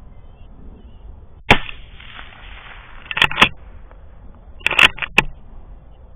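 A series of gunshots fired while hunting. A single shot comes about a second and a half in and echoes for over a second, then more shots come in quick clusters around three and a half and five seconds in.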